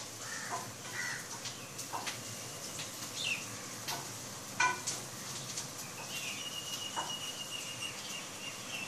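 Birds chirping and calling in short scattered notes, with occasional sharp clicks. A thin, steady high whistle comes in about six seconds in.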